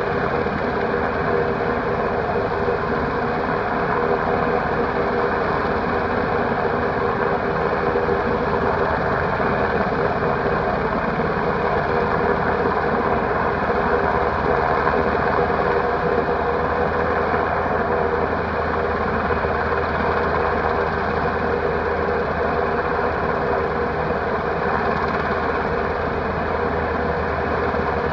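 UH-60 Black Hawk helicopter holding a steady hover during a hoist rescue: a continuous, even rotor and turbine engine noise.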